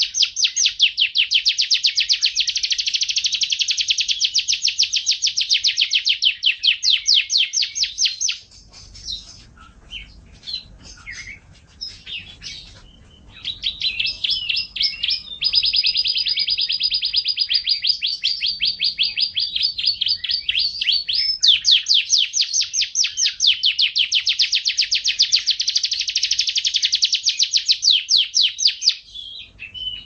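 Domestic canary singing: long runs of rapid, evenly repeated trill notes, high-pitched. About eight seconds in the song breaks into a few seconds of scattered short chirps, then resumes with more long trills.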